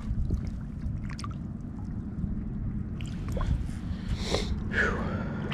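Low, uneven rumble of wind on the microphone, with light water splashing and sloshing as a largemouth bass is let go in the shallows at the pond's edge.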